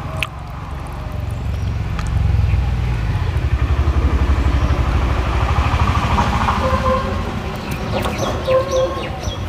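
A motor vehicle's engine passing close by: a low, rapidly pulsing rumble that builds from about two seconds in, is loudest in the middle and eases off toward the end.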